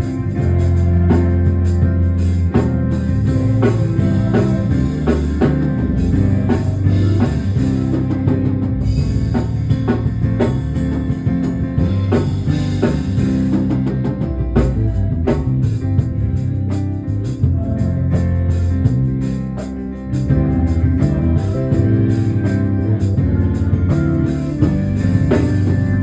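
Live church band music: bass guitar holding deep notes under guitar and a drum kit keeping a steady beat.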